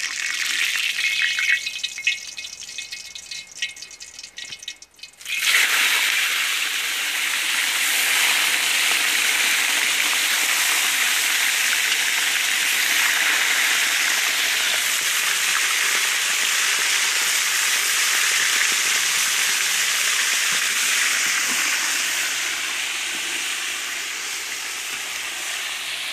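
Fish frying in hot oil in a cast-iron cauldron: crackling and spitting for the first few seconds, then a loud, steady sizzle from about five seconds in as the fish goes into the oil. The sizzle eases slightly near the end.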